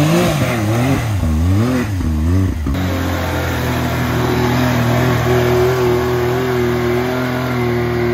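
Can-Am Maverick X3 side-by-side's engine revving up and down hard as it spins its tires in deep mud, then held at steady high revs from about three seconds in.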